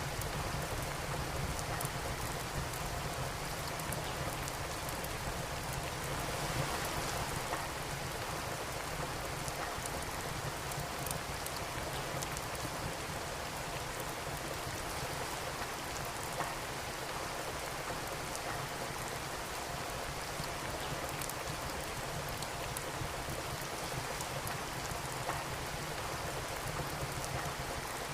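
Steady rain with a wood fire crackling: an even rain hiss with scattered small sharp pops over it.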